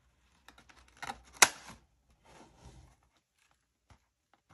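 Handheld circle paper punch snapping shut through a cardstock divider: one sharp click about a second and a half in, with paper rustling and small clicks around it as the punch is fitted over the edge.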